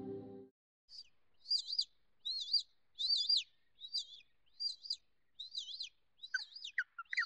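Bird chirps at about one a second, each a quick, high, wavering double note. Near the end they quicken into a faster twittering with lower notes mixed in.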